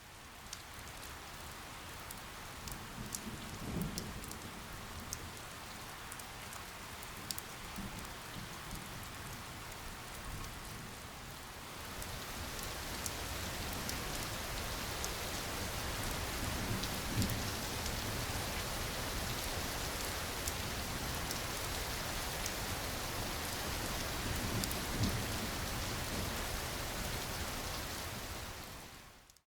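Steady rain falling on a surface, with fine pattering drops, a few soft low rumbles, and a rise in level about twelve seconds in. It cuts off suddenly at the end.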